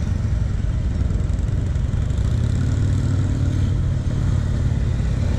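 Police motorcycle engine running at low speed while the bike weaves through a cone course: a steady low engine rumble that swells a little around the middle.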